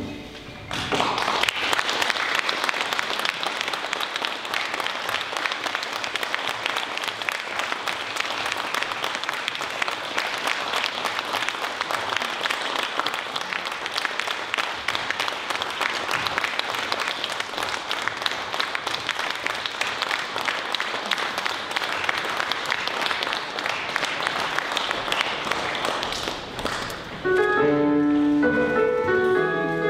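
Audience applauding steadily for most of the stretch. The clapping fades out near the end as music begins.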